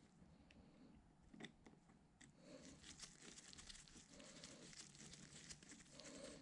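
Faint clicks and scraping of a flat-blade screwdriver turning a fillister-head screw into a metal coolant pump cover, with a few sharper ticks about one and a half and two seconds in.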